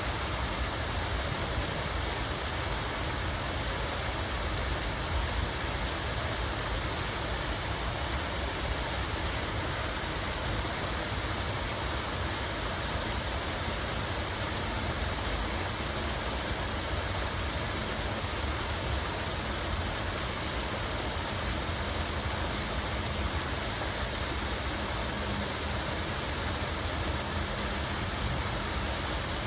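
Steady rush of running water, even and unbroken, with a low rumble underneath.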